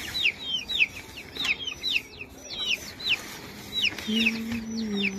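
Young chicks peeping, a rapid stream of short, high, downward-sliding peeps several times a second.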